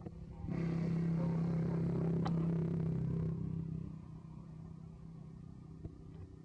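A motor vehicle engine passing close by: a steady engine hum that comes up about half a second in, holds loud for about three seconds, then fades away.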